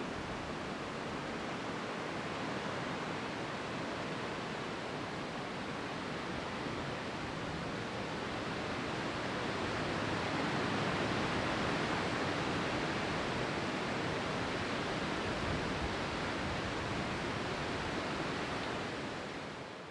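Steady rushing noise with no rhythm or tones, swelling a little about ten seconds in and fading out at the very end.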